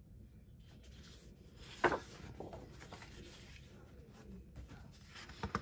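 Sheets of scrapbook patterned paper being handled and slid over one another, a quiet rustle with one sharper crackle about two seconds in.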